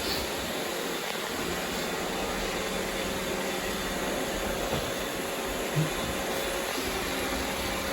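Robot vacuum running steadily while it sweeps up confetti: an even whirring hiss with a faint constant hum, and one small low knock about six seconds in.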